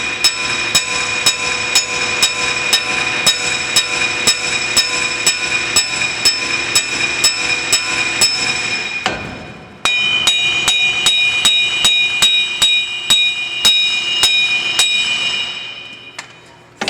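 Pneumatic air hammer rattling hard against a steel wheel bearing hub to shock the rust loose and drive it out of the truck's steering knuckle, with the metal ringing. It runs in two long bursts with a brief pause about nine seconds in, and stops near the end.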